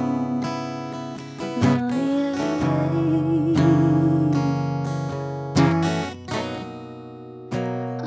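Acoustic guitar strumming chords, with a woman's voice singing a long, wavering wordless note over them in the middle.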